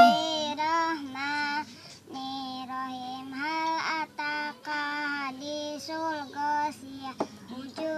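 A young girl's voice chanting Quran recitation in a sung, melodic style, in held and gliding phrases with short pauses between them.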